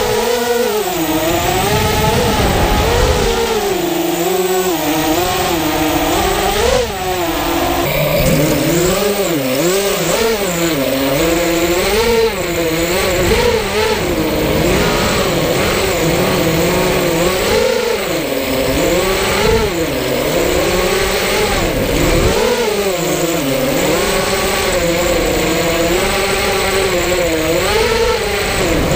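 FPV racing quadcopter's motors and propellers whining, the pitch rising and falling constantly as the throttle is worked in fast flight.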